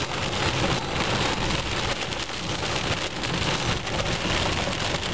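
Heavy cloudburst rain beating steadily on a car's roof and windscreen, heard from inside the moving car.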